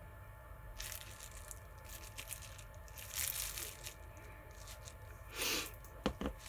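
Packaging being handled: a few short bursts of crinkling and rustling, the loudest about three seconds in, followed by a couple of light clicks near the end.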